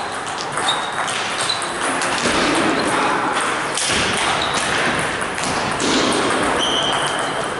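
Table tennis ball clicking off bats and the table in a rally, with a few short high pings, over the steady background noise of a large hall.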